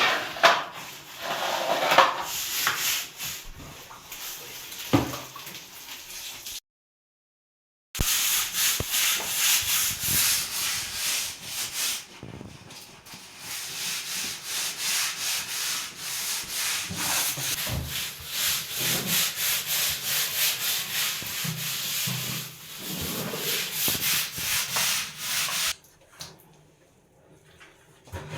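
Brush scrubbing a hard surface in quick, rhythmic back-and-forth strokes, several a second. The sound drops out completely for about a second early on, and the scrubbing stops shortly before the end.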